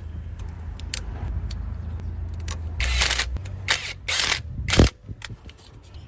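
Hand work on an electric tricycle's newly fitted motor and its wiring: scattered clicks, a few rattling clatters of parts and tools, and one sharp knock just before the end, over a steady low hum.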